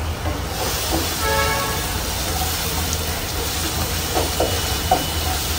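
Paneer bhurji frying in a pan on a gas stove: a steady sizzling hiss, with a few light taps of the spatula against the pan between about four and five seconds in.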